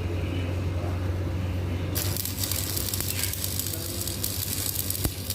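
Electric arc welding: a low steady hum, then about two seconds in the arc strikes and runs with a continuous crackling, frying sizzle.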